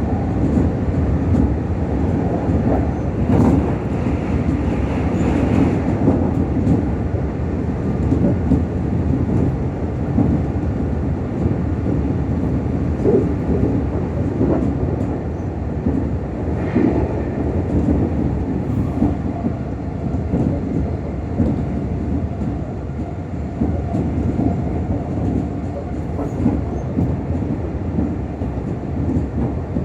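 Meitetsu 6000 series electric train under way, heard inside the passenger car: a steady rumble of wheels running on the track. The sound grows brighter for a few seconds near the start, and there is a short sharp accent about halfway through.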